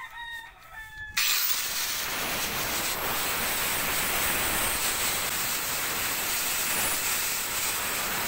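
Small electric angle grinder switched on about a second in, then running steadily with its cutting disc against a small blue PVC fitting, a loud hissing whir with a thin high whine.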